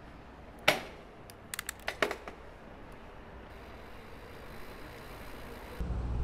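Specialized Turbo Levo e-mountain bike rolling downhill on pavement: one sharp clunk about a second in, then a quick, irregular cluster of clicks and rattles over a low hiss. Near the end a low steady rumble starts suddenly.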